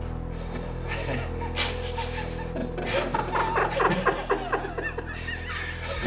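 Someone chuckling, loudest from about halfway through, over a low steady drone in the film's music.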